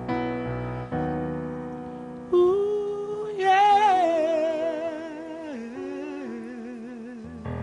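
A man singing the last phrase of a ballad live, holding long notes with vibrato over sustained accompaniment chords. The voice comes in about two seconds in and steps down in pitch to a low held note near the end.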